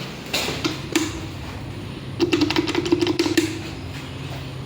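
Old Fujitec lift call button clicked over and over: a few single clicks, then a quick run of about ten clicks a second with a low hum for a little over a second. The button is worn and no longer responds properly.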